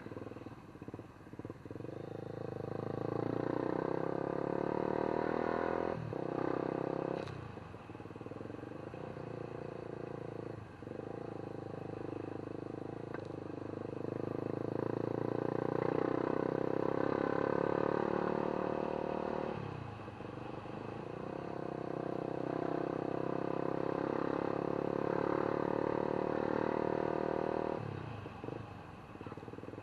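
A vehicle engine running steadily under way, its pitch breaking and changing several times, about 6, 11, 20 and 28 seconds in.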